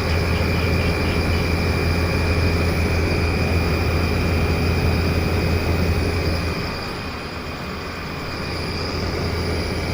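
LG Dual Inverter window air conditioner (LA100EC) running in fan mode with a steady low hum and a shrill, high-pitched cricket-like whine over it. The whine is an abnormal noise, the unit's fault. The low hum eases about two-thirds of the way through while the whine goes on.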